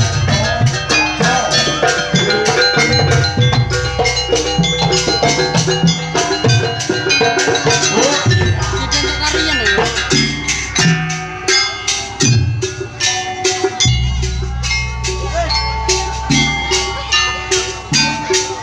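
Jaranan gamelan music played live: fast, even strokes on metal gong-chimes and drums, with several deep low gong notes.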